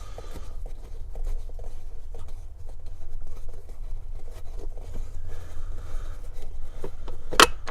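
Plastic lower steering-column cover being pried and worked loose by hand: light rubbing and small ticks of plastic, then a few sharp clicks near the end as its clips pop free.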